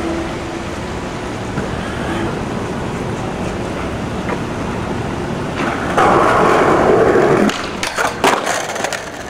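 Skateboard wheels rolling steadily over tiled pavement, then about six seconds in the board grinds loudly along a steel stair handrail for about a second and a half, followed by a few sharp clacks as the board comes off the rail and lands.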